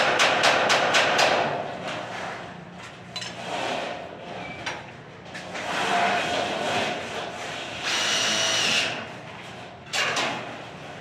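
Power-tool work on steel studs. A fast clicking rattle, about five strokes a second, stops a little over a second in and is followed by scattered knocks. A power tool then whines for about a second around eight seconds in, with another sudden burst of noise about ten seconds in.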